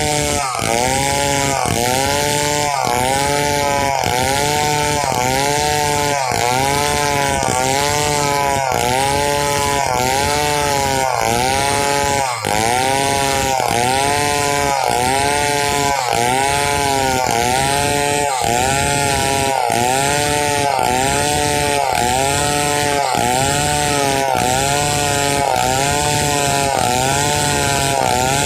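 Large two-stroke chainsaw, a Stihl 070, under load cutting through pule wood. The engine pitch rises and falls in a steady rhythm about once a second.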